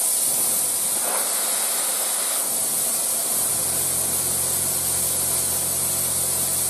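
Compressed air from an external line hissing steadily out of a Parkside PPSK40A1 plasma cutter's torch. It comes on suddenly and keeps flowing, because the gun's trigger does not control external air. A low hum joins about three and a half seconds in.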